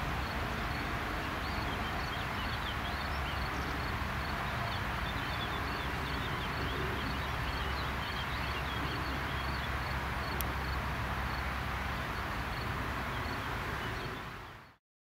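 Airbus A320-214's CFM56 turbofan engines at takeoff thrust as the jet climbs away: a steady distant jet roar, with birds chirping over it. The sound fades out near the end.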